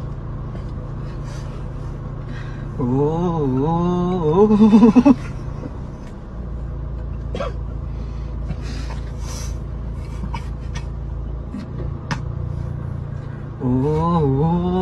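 Steady low rumble of a car's cabin on the move. Twice, about three seconds in and again near the end, a person's voice makes a wavering whine that slides up and down in pitch, rises and breaks into quick pulses.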